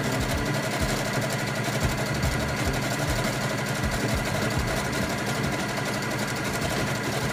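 Brother CS6000i computerized sewing machine running at steady speed, stitching through the layered scarf fabric and fleece; it cuts off suddenly at the end.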